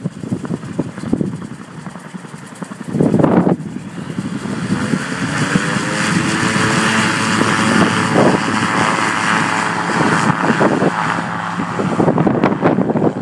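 AutoGyro Calidus gyroplane's engine and pusher propeller running up to takeoff power, the engine note rising over a few seconds and then holding steady. Gusts of wind buffet the microphone about three seconds in and again near the end.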